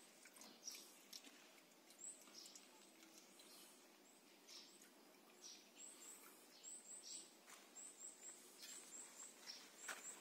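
Quiet outdoor ambience with faint, high, short bird chirps repeating irregularly, thicker from about two seconds in, and a few soft scratchy ticks.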